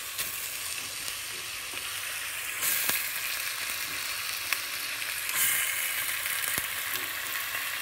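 Chicken pieces sizzling in oil and green curry paste in a steel pot. The sizzle gets louder about two and a half seconds in, as chopped tomatoes are tipped in, and again about five seconds in. A few light knocks come from the wooden spoon stirring.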